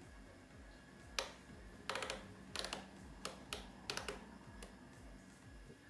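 A string of short clicks and taps on a Thermomix's controls, about eight of them from about a second in, as the cook time, temperature and speed are set.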